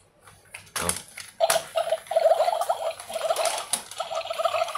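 Battery-powered toy starfish switched on with a click about a second in, then running on its wheels: its small motor and plastic gears give a rapid, continuous ratchety clatter.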